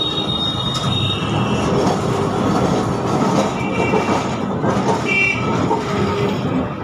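A Kolkata street tram running, heard from inside the wooden car: a steady rumble and rattle of the car on its rails. A high tone fades out about a second in, and brief high-pitched tones come twice around the middle.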